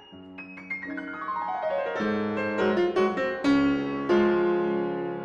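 Short piano intro jingle: a quick run of notes stepping downward, then a few ringing chords, cutting off abruptly at the end.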